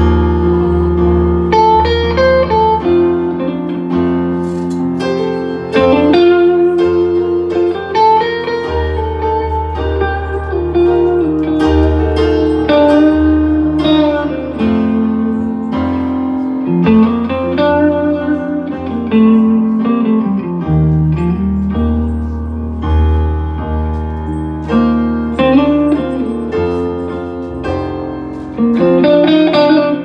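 Electric guitar solo played live on a Stratocaster-style guitar, with notes bent up and down over steady low bass notes.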